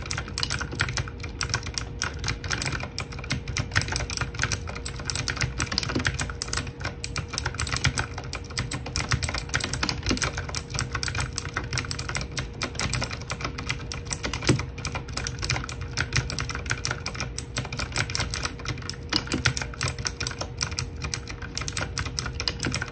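Continuous fast typing on a HUO JI E-Element Z-88 mechanical keyboard with clicky blue switches, a dense, unbroken stream of key clicks.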